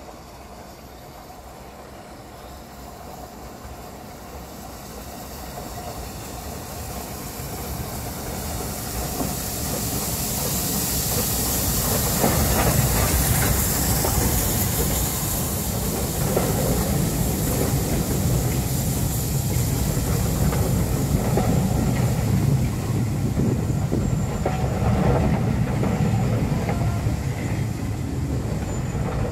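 Taff Vale Railway No. 85, an 0-6-2 steam tank engine, approaches and grows steadily louder, passing close about twelve seconds in with a hiss of steam. Its train of coaches then rolls by, the wheels clicking over the rail joints.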